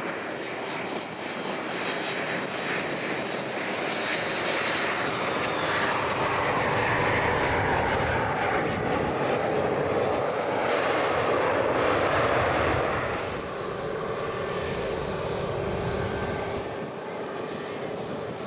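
Boeing 737 MAX 8's CFM LEAP-1B turbofan jet engines landing: a steady jet rush that swells to its loudest while the airliner is on the runway with spoilers up, then drops back about thirteen seconds in and eases further near the end.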